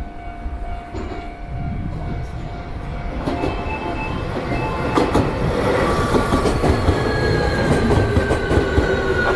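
Electric train running close by, getting louder, with a whine that falls slowly in pitch and a few sharp rail clicks from about five seconds in.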